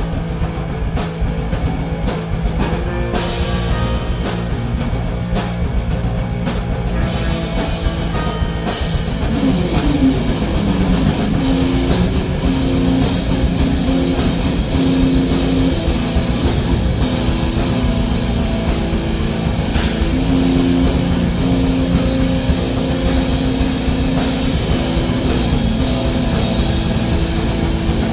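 Live improvised rock jam on two notes, E and F, with guitar over a drum kit and crashing cymbals. A sliding pitch comes about ten seconds in, and the playing grows a little louder after it.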